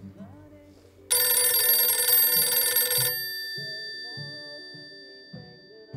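Telephone bell ringing once for about two seconds, starting about a second in, then cutting off and fading away, over quiet background music.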